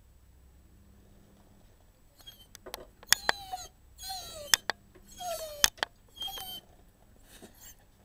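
Dog whining: four short, high whimpers, each falling in pitch, coming about a second apart after a quiet start, with a few sharp clicks among them.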